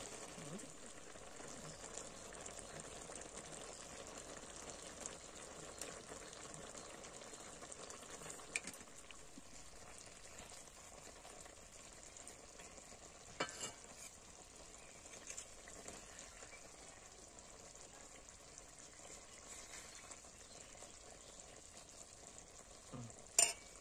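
Bata fish curry sizzling steadily in a metal kadai, with a steel spoon scraping and clinking against the pan a few times; the sharpest clink comes near the end as a fish is lifted out to serve.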